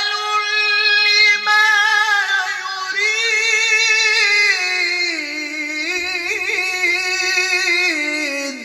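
A man's voice reciting the Quran in melodic tajweed style, drawing out one long held note into a microphone. The pitch steps down about halfway through, then he adds quick warbling turns before the note ends near the close.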